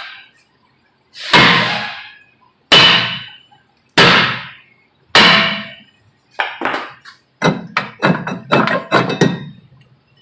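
A hammer striking the face of a Nissan Altima's rear brake rotor to break it loose from the hub, where it is stuck. Four heavy blows, each ringing briefly, land about a second and a quarter apart, then a quicker run of lighter blows follows.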